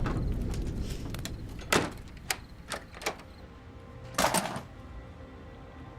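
A few sharp knocks and clicks over a low rumble, then a short rustling or scraping burst about four seconds in.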